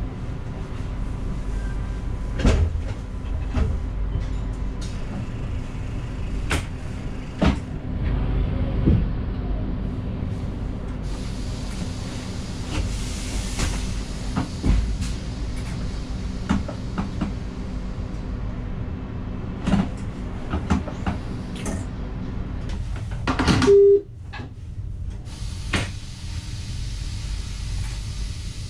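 Inside the cab of an NS electric train: a steady low rumble and hum with scattered clicks and clunks. About three-quarters of the way through comes a loud clunk and a short beep, after which the rumble is quieter.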